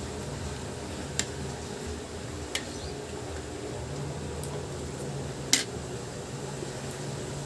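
Steady hum of an electric fan, with three short sharp clicks, the loudest about three quarters of the way through.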